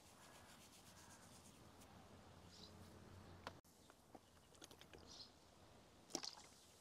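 Near silence: faint outdoor room tone with a few small clicks and faint high chirps.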